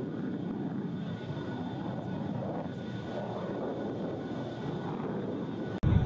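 Steady engine roar with a faint, even high whine over it. Near the end it cuts off abruptly and a louder, deeper roar begins.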